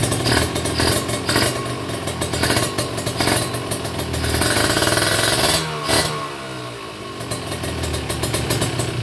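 Kawasaki Ninja 150 RR's two-stroke single engine revved through an RC3 aftermarket silencer: several short throttle blips, then a longer rev that is held briefly before the revs fall away toward idle about six seconds in, with a few smaller blips near the end.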